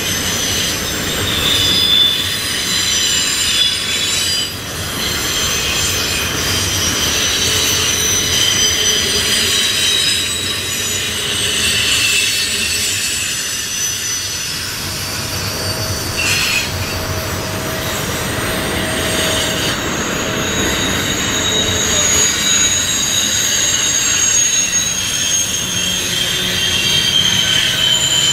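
Double-stack container train rolling past on a curve, its wheels squealing in several shifting high-pitched tones over a steady rumble of wheels on rail.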